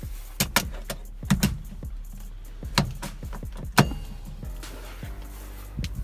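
Sharp metallic clicks and clacks as an aftermarket quick-release steering wheel is handled and seated onto its hub, about six knocks in the first four seconds, the loudest near the end of them.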